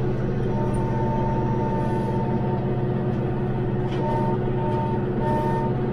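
Branson 5520CH tractor's diesel engine running steadily under load, driving a rotary cutter (brush hog) through tall grass and brush. A thin whine cuts in and out over the steady engine sound.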